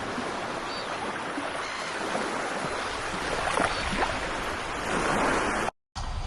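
Ocean surf washing on the shore: a steady rushing hiss that breaks off sharply near the end.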